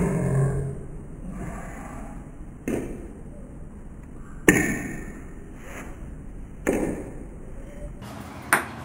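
Ping-pong ball hitting paddles and the table, played in slow motion: four separate knocks a second or two apart, each dying away slowly.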